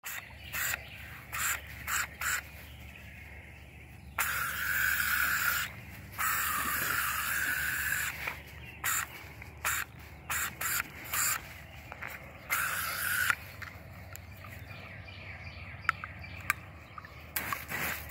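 Garden hose spray nozzle squirting in repeated bursts, the water jet hissing on and off, with short squirts and two longer ones between about four and eight seconds in.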